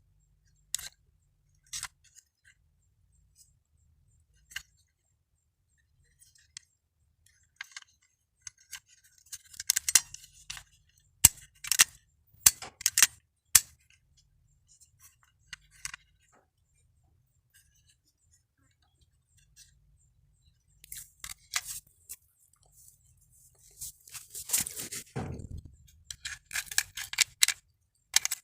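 Sharp clicks and clinks of small plastic and metal parts being handled and pried apart as a burnt miniature circuit breaker (MCB) is disassembled, in scattered clusters with a longer scrape about three-quarters of the way through.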